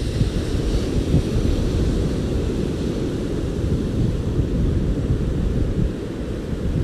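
Ocean surf: a steady low rumble of waves with a fainter hiss of wash above it.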